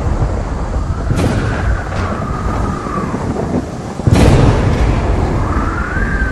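Thunder-and-lightning sound effects for an animated logo: a continuous thunder rumble with crackling strikes, the loudest a sudden crash about four seconds in. A thin tone rises and falls twice over the noise.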